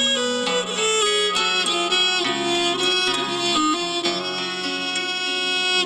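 Instrumental passage between sung verses of a Ukrainian folk song: a violin plays the melody in held notes over plucked string accompaniment.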